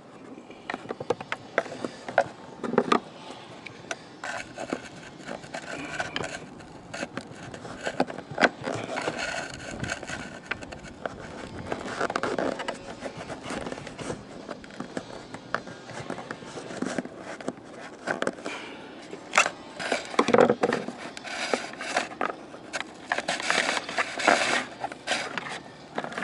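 Hands working coaxial antenna cables through a hole in an RV cabinet: irregular scraping and rubbing with scattered sharp clicks and knocks.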